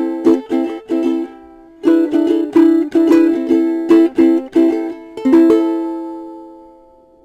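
Vangoa laminate walnut concert ukulele strummed in rhythmic chords with its side sound port open, picked up by a lavalier mic clipped on the player's chest. The strumming pauses briefly about a second and a half in, resumes, and ends on a last chord that rings out and fades away.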